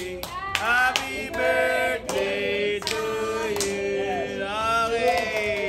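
A group of people singing together, several voices holding long drawn-out notes.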